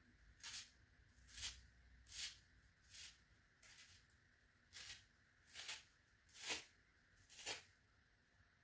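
Foam scrub sponge being torn by hand in short rips, nine of them at about one a second.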